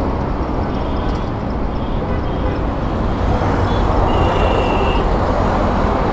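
Road traffic passing on a city road: a steady rumble of vehicles going by, with a short high beep a little after four seconds in.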